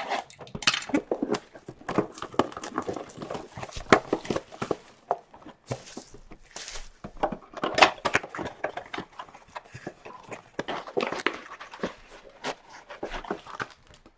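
Cardboard blaster box and card-pack wrappers being opened and handled: a busy run of rustling, crinkling, clicks and taps, with two short tearing sounds about six seconds in.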